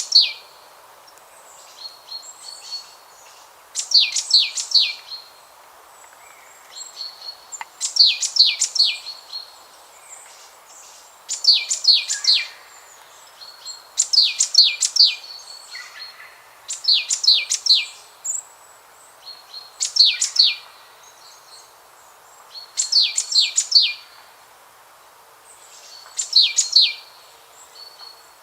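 A songbird singing the same short phrase over and over, about every three seconds. Each phrase is a quick run of three or four high, sharp notes sweeping downward, sometimes led in by a thinner note, over a faint steady hiss.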